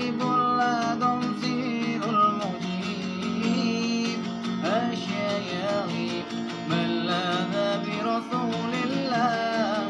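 A man singing sholawat in a wavering, ornamented melody while strumming an acoustic guitar.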